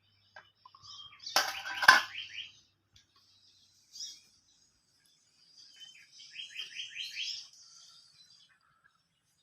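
Swiftlets chirping, with a quick run of about six repeated trilling notes past the middle. A loud clatter comes about one and a half to two seconds in.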